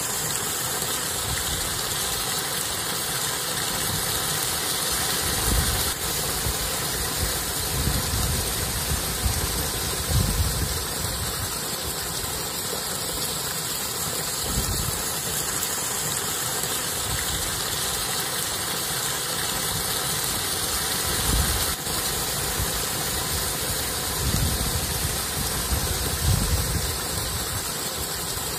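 Wind buffeting an outdoor microphone: a steady rushing noise with irregular low rumbling gusts every few seconds.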